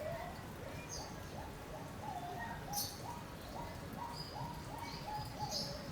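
Guinea pigs squeaking: a run of short, repeated pitched calls, each rising then levelling off, about two a second, with a few brief higher chirps mixed in.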